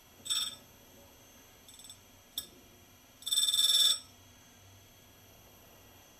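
Grinding wheel on a tool and cutter grinder making light, intermittent contact with the corner of a four-flute cutter as the tool is swung around to grind a small corner radius, giving a high-pitched ringing screech. There is a short burst near the start, a faint touch and a sharp tick around two seconds in, and the longest and loudest burst, about a second long, a little after three seconds.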